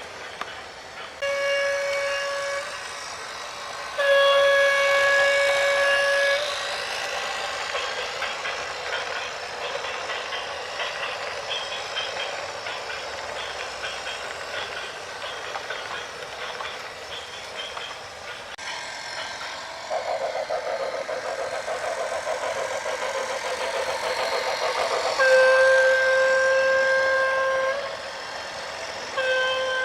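A horn blown in four long, steady blasts. A noisy mechanical rattle runs in the gaps between them.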